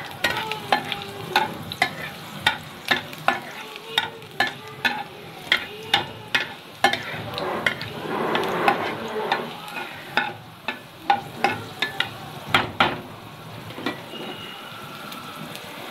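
Chopped garlic sizzling in hot mustard oil in a kadhai, with frequent sharp clicks and pops about twice a second that thin out near the end. The sizzle swells about halfway through.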